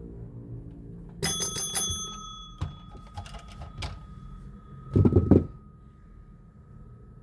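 A single bell-like metallic ring that fades slowly over several seconds, with a few light clicks and a short low thump about five seconds in.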